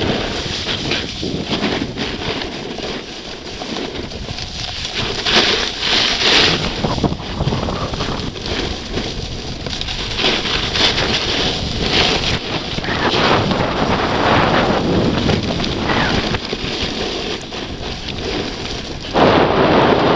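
Wind buffeting the microphone of a camera moving fast downhill, mixed with the hiss and scrape of edges on packed snow, swelling and easing in waves with the turns. It gets louder suddenly about a second before the end.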